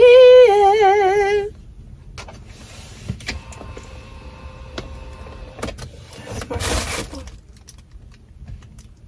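A woman's voice sings one high, wavering note for about a second and a half, the loudest sound here. After it there is a fainter steady whine for a few seconds and a short rushing noise about seven seconds in.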